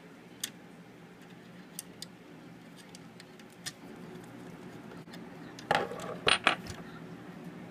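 Small metallic clicks and clinks of a screwdriver and metal hardware at the front shock mount of a 1/14 scale truck's aluminium frame, a few at a time, then a louder brief clatter of metal parts being handled about six seconds in.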